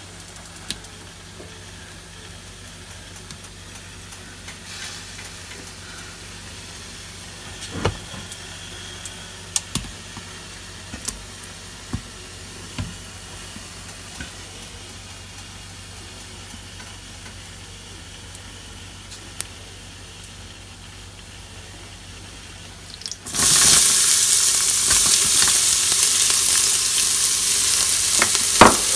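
A low steady hum with a few light clicks, then about 23 seconds in a loud sizzle starts suddenly and keeps on: chopped small onions and green chilies hitting hot oil in an Instant Pot's stainless steel inner pot. A few clicks sound over the sizzle near the end.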